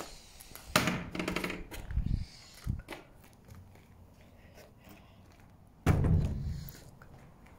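Knocks and thunks from an old wooden door being handled: a sharp knock about a second in, a couple of smaller knocks, then the loudest, a heavy thunk near the end that fades over about a second.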